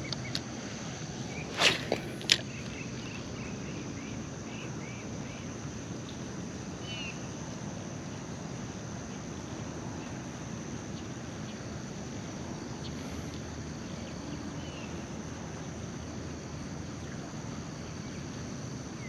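Insects droning in a steady, high-pitched outdoor hum, with faint brief chirps now and then. Two short sharp sounds stand out about two seconds in.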